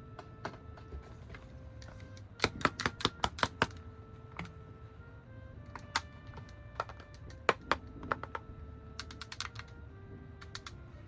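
Sharp plastic clicks and taps from toy pieces being handled: a quick run of about seven clicks early on, then scattered single clicks and a short flurry near the end. Under them plays a simple melody of plain, steady electronic tones that step from note to note.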